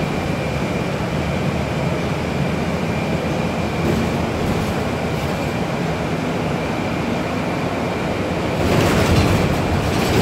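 Interior noise of a city transit bus under way, heard from the passenger cabin: a steady low engine and road rumble with a faint high whine. The noise swells near the end.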